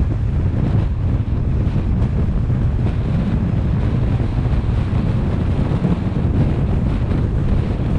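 Wind buffeting the microphone of a car-mounted camera on a moving car: a steady, loud low rumble that does not change.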